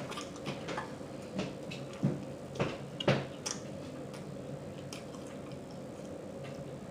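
Close-miked mouth chewing pit beef with lip smacking: scattered wet clicks and smacks, most of them in the first three and a half seconds, sparser after that.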